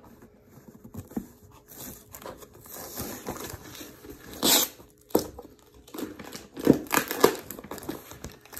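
Packing tape being peeled and ripped off a cardboard shipping box, the cardboard scraping and crinkling under the hands. The strongest rip comes about halfway through, with several more quick rips near the end.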